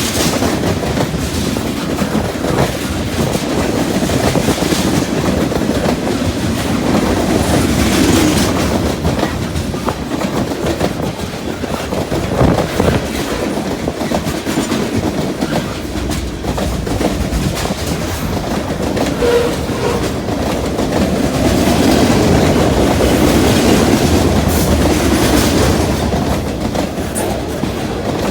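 Freight train cars rolling past at close range: a steady loud rumble of steel wheels on rail, with repeated clicks and clacks as the wheels cross rail joints.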